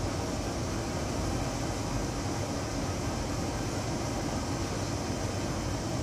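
Steady rushing air noise of a running fan or ventilation unit, with a low hum underneath and no change in level.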